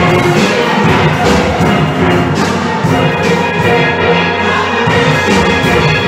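Steel band playing live: a row of steel pans playing a rhythmic tune together over deeper bass pans.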